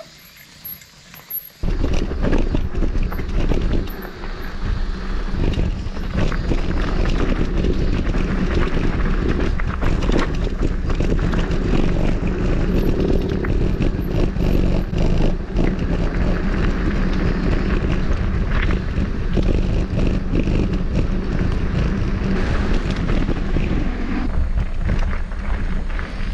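Mountain bike ridden down a rough trail: wind rushing over the helmet-camera microphone with the bike rattling and knocking over roots and rocks, starting suddenly about a second and a half in.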